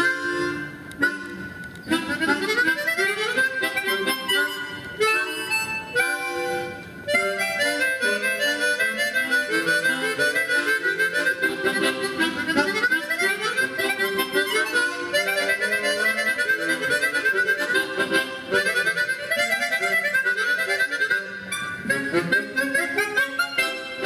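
A harmonica quartet plays a brisk ensemble piece, quick runs of notes over lower held parts.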